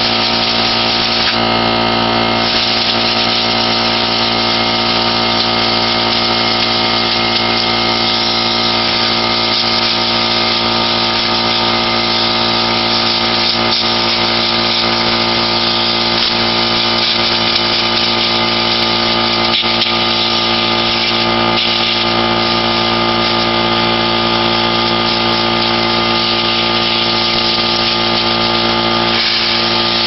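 An air compressor runs steadily while compressed air hisses from a blow-gun nozzle, blasting dust out of the crevices of a pleated vacuum cleaner filter.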